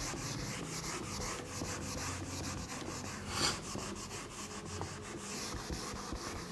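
A whiteboard eraser wiping the board in quick back-and-forth strokes: a steady, rhythmic rubbing swish, with one louder scrape about halfway through.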